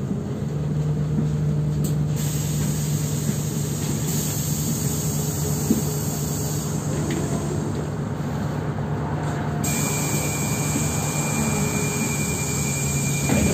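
Inside a moving city bus: steady drive hum and road noise. A thin high whine joins about ten seconds in.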